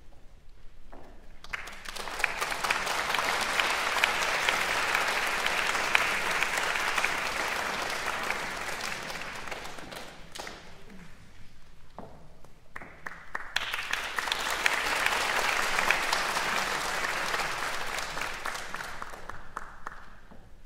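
Audience applauding in two waves: the clapping swells and fades out about halfway through, then a second round starts a few seconds later and dies away near the end.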